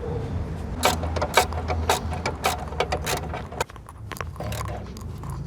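Ratchet wrench clicking in short, irregular strokes as a small bolt is tightened, with metal-on-metal clinks.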